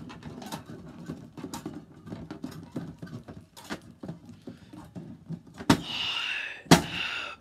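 Plastic wrestling action figures handled and pressed on a toy ring's mat, with small clicks and rustles, then two sharp slaps on the mat about a second apart near the end, counting a pin.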